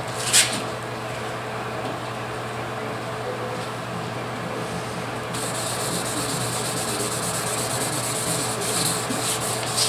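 Wet sandpaper rubbed by hand back and forth over the freshly painted steel door of a Dodge Dakota: color sanding to level orange peel in Rust-Oleum enamel. A short sharp hiss about half a second in, and the rasp grows brighter about halfway through.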